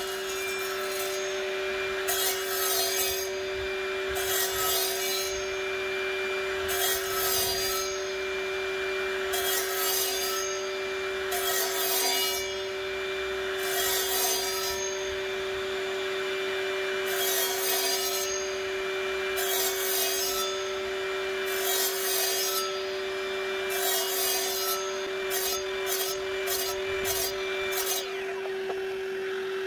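Evolution 36-volt twin-battery cordless 10-inch miter saw running steadily while its blade is fed into a thick timber in repeated bites about every two seconds, the motor's pitch dipping slightly under each. Near the end come several quicker, shorter cuts.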